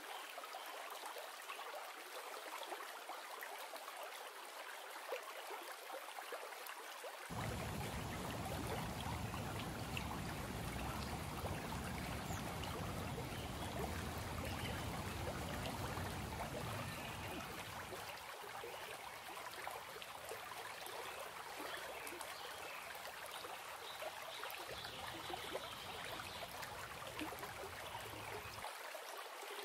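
Flowing water from a garden waterfall and rocky stream, a steady rushing and trickling. A low rumble comes in abruptly about seven seconds in, drops out around eighteen seconds, and returns briefly near the end.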